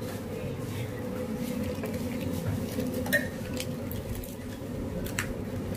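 Metal utensils clinking against a steel stockpot and bowls: a few separate clinks, the sharpest about three seconds in, over a steady low hum.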